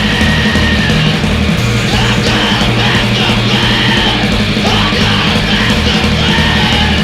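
Loud, distorted punk-rock band playing: electric guitar, bass and drums, with yelled vocals.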